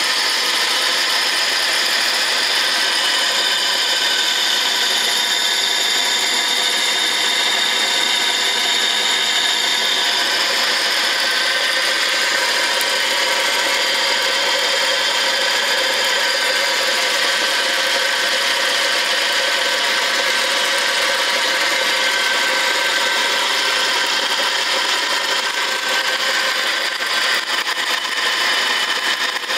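Bench metal lathe running at a steady speed, turning a bar supported in a ball-bearing steady rest: a constant mechanical whir of gears and bearings with several steady tones.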